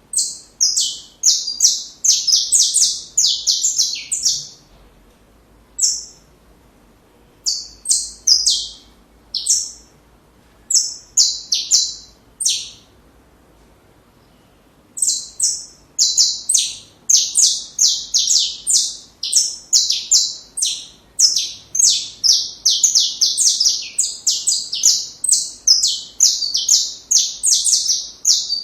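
Saffron finch (canário-da-terra) singing: fast, high trilled song phrases in bursts, a few scattered short phrases and a brief pause near the middle, then a long unbroken run of song in the second half.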